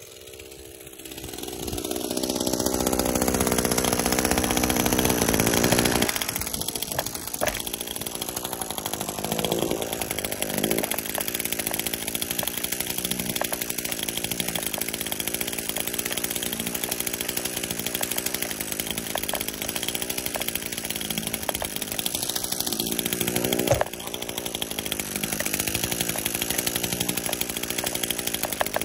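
Gas string trimmer's two-stroke engine running at high speed as it edges grass along a sidewalk. It swells up over the first couple of seconds, is loudest for a few seconds, then settles to a steady run with small rises and falls in pitch and a brief dip near the end.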